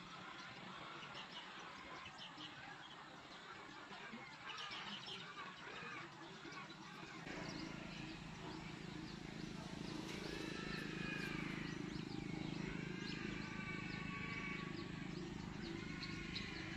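Small birds chirping and calling in short, repeated phrases. About halfway through, a low, steady hum joins them and continues to the end.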